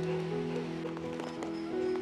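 Background music of slow, held notes that change pitch every half second or so.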